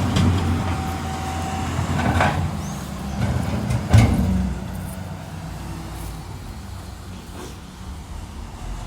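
A heavy diesel vehicle or road machine runs with a steady low rumble, with a sharp knock about four seconds in, after which it runs more quietly.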